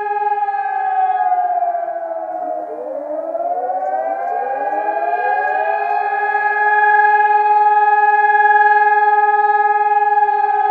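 Civil defence warning siren wailing. Its steady tone sags in pitch over the first few seconds, then several overlapping tones climb back up and it holds steady again.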